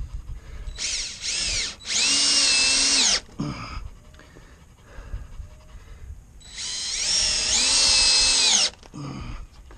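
Cordless drill driving a screw into a pine 2x4: the motor whines in a short burst, then a longer run, and after a pause a second long run whose pitch climbs as it spins up before holding steady.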